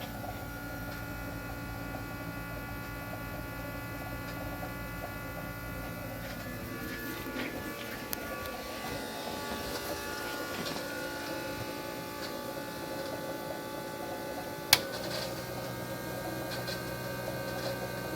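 Failing electric fuel pump running with a steady electric buzz and whine made of several held tones. A sharp click comes about fifteen seconds in, and after it the low hum is stronger.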